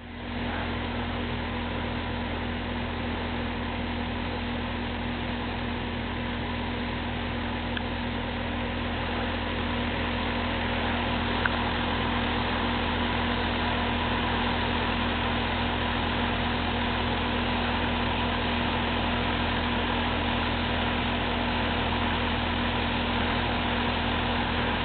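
Large ventilation fan blowing air up through a ground-level metal grate: a steady mechanical hum with a low drone and a couple of higher steady tones over the rush of air.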